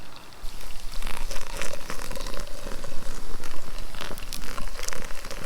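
Crinkling and rustling with many small irregular crackles and clicks.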